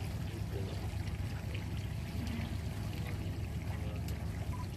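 Water washing and trickling along the hull of a boat moving on a river, over a steady low rumble.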